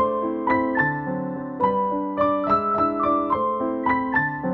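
Background piano music: a gentle melody of separate notes over held lower notes.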